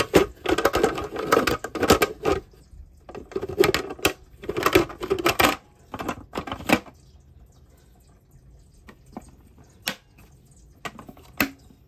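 Plastic lid of a food processor being handled and twisted onto its bowl. Irregular clattering and scraping comes in stretches over the first several seconds, then a few separate sharp clicks as it latches.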